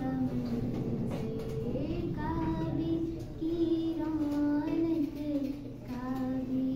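A girl's solo voice in long, held melodic phrases that slide between pitches, with short pauses for breath.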